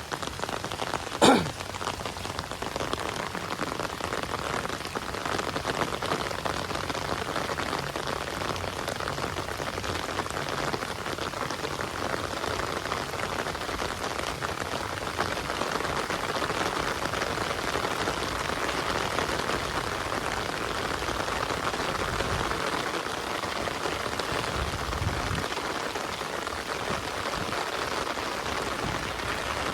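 Steady heavy rain falling, an even hiss of drops. A single brief, sharp sound with a quickly falling pitch stands out about a second in.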